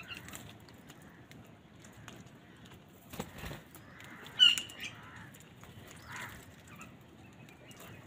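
A flock of house crows feeding, with wings flapping and a few short calls; the loudest is one sharp call about halfway through.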